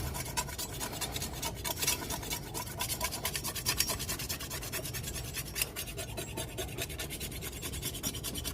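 Small hand-held jasper sharpening stone scraped back and forth along a steel machete edge in quick, short, even strokes, a steady gritty rasp of stone on steel.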